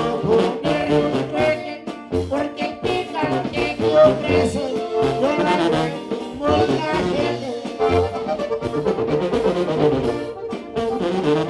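A norteño band playing a corrido live: a tuba carries the bass line under a button accordion and a bajo quinto.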